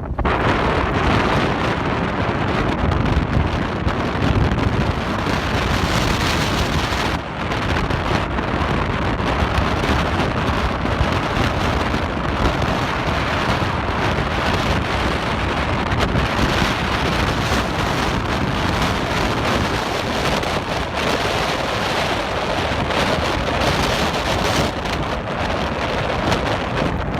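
Heavy rain falling steadily, with some wind noise on the microphone.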